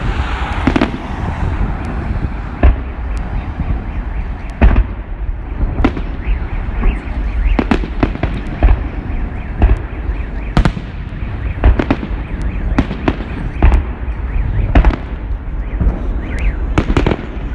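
Fireworks salute: a string of sharp bangs from bursting shells, irregularly spaced at roughly one a second, over a continuous crackling rumble.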